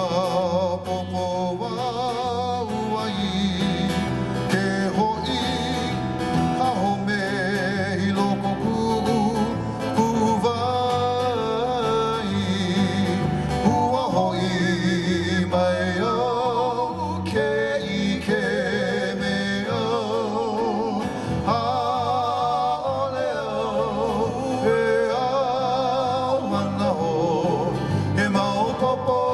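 Live Hawaiian song: a voice with strong vibrato carrying the melody over strummed guitar and a steady bass line.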